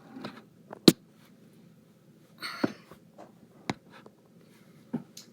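Small toys being handled: several sharp clicks and knocks, with a short rustle about two and a half seconds in.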